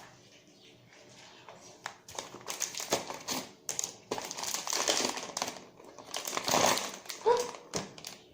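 Packaging being handled, crinkling and rustling in a run of bursts that starts about two seconds in.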